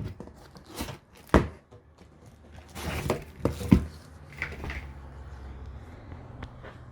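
A few sharp knocks and thuds with short bouts of rustling as a safe is handled and unpacked from its cardboard box.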